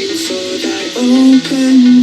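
A song played back through mini tower speakers with 3-inch woofers and dome tweeters, driven by a class D amplifier; a melody of changing notes runs throughout.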